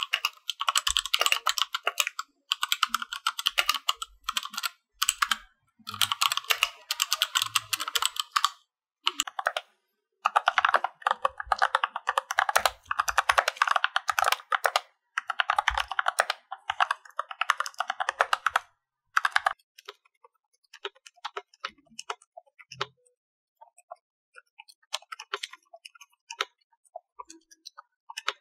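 Fast typing on mechanical keyboards: brisk, loud key clicks for the first part, which includes a Rakk Lam-Ang Pro with Gateron Milky Yellow switches. After about nineteen seconds it gives way to much quieter, muted typing on a KBD75v2 fitted with silenced Uro frankenswitches (ZealPC Zilents stems in C3 Kiwi housings, 67 g).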